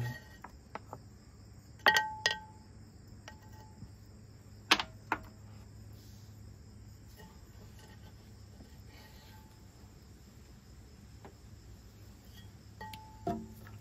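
Quiet handling at a potter's wheel: a few sharp clicks and taps, some with a brief metallic ring, as the freshly thrown clay coaster is lifted off the wheel head and the wet slurry wiped away. A faint low hum and a faint high-pitched tone run steadily underneath.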